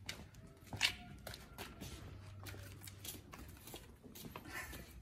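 Golden retriever's claws clicking and tapping unevenly on a hard floor as it walks, the loudest click a little under a second in.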